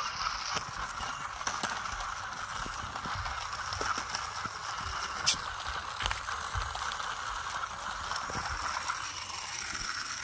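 Small electric motor and gears of a soda-can toy car running steadily, a constant whine with gear rattle and scattered clicks as it rolls over rough concrete. There is one sharper click about halfway through.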